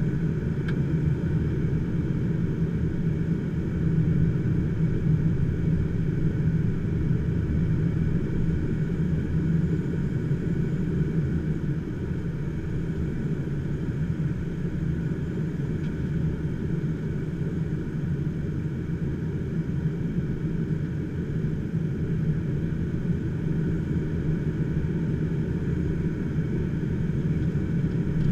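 Steady rush of air over the canopy and through the cockpit of an HK-36 Dimona motor glider gliding with its engine stopped and propeller standing still.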